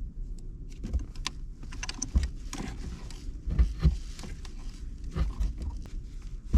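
Irregular small clicks, taps and rustles of hands and a cutting tool working on car wiring, with low hum under them.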